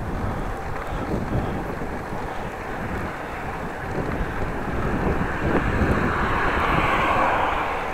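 Wind rumbling on the microphone of a moving bicycle, with a passing car's tyre noise swelling over the last few seconds and then fading.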